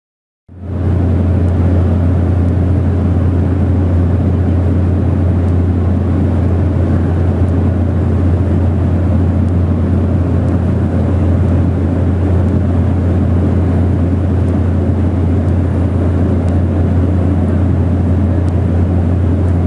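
Cabin noise of a small propeller plane in flight: a loud, steady low drone of engine and propeller with rushing air, fading in within the first second.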